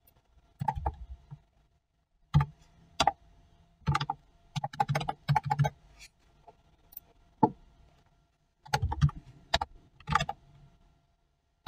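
Computer keyboard being typed on in short bursts of a few keystrokes, each a sharp click with a dull thud, with pauses of a second or so between bursts.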